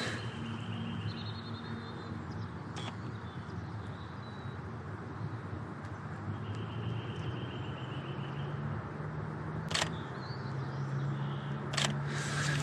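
Canon EOS R5 shutter firing three separate single clicks, a few seconds apart, over a steady outdoor background with a low hum.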